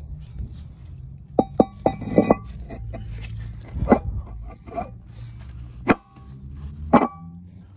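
New brake rotor clinking against the metal hub as it is handled and fitted, with each sharp metallic clink ringing briefly like a bell. A quick run of clinks comes about a second and a half in, then single clinks follow a few seconds apart.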